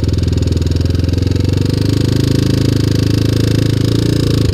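1987 Honda TRX250X ATV's single-cylinder four-stroke engine running steadily while the quad is ridden, its pitch shifting a little midway.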